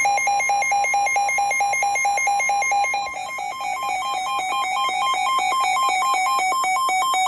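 Electronic alert tones marking an incoming severe thunderstorm warning from a weather alert radio receiver. For about three seconds a steady beep sounds under rapid pulsed beeps. The pulses then give way to beeping that alternates between two pitches, several times a second.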